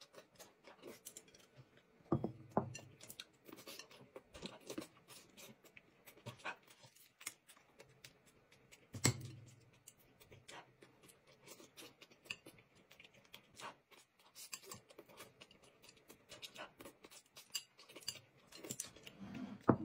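Eating sounds at a table: light clicks and taps of chopsticks against porcelain plates and bowls, soft chewing, and a boiled egg being peeled. Two louder knocks come about two and nine seconds in.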